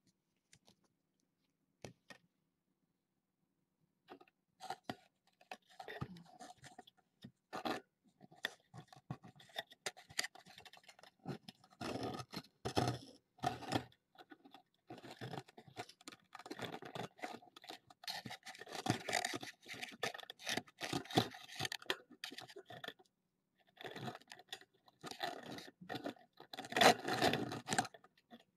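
Kittens' claws scratching and scrabbling on a carpeted cat tower and carpet, in irregular bursts of scraping and clicking that start about four seconds in and grow loudest near the end.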